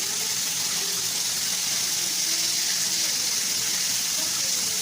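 Breaded chicken nuggets frying in hot oil: a steady, even sizzle.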